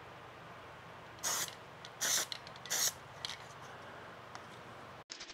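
Aerosol can of spray adhesive hissing in three short bursts, a little under a second apart, as glue is sprayed onto rubber strips.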